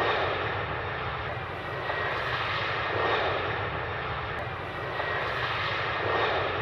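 Airplane engines running, a steady rushing noise with low rumble that swells a few times.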